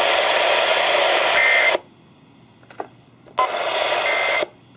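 Radio receiver static hiss with no voice on the channel, cutting out to near-quiet about two seconds in, coming back about a second and a half later, and cutting out again near the end. A short faint tone sounds just before each cut-out, and there is a small click in the first quiet gap.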